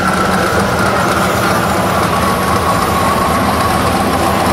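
Slow-moving classic-car engine rumbling steadily as an early-1960s Chevy II rolls past close by, with a whine that slowly drops in pitch.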